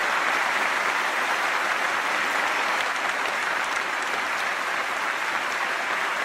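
A large audience applauding steadily: many people clapping at once, blending into a dense, even wash of claps.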